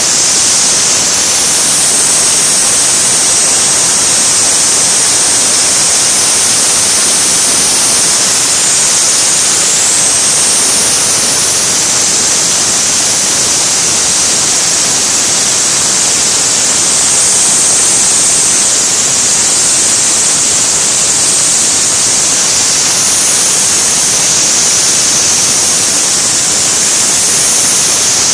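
Compressed air hissing loudly and steadily as it drives a small handmade brass reciprocating model engine, a high, even hiss with no distinct exhaust beats.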